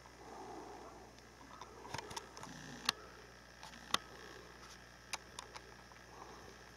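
Handheld camera handling noise: a few scattered, sharp clicks and ticks over faint background hiss, the loudest about three and four seconds in.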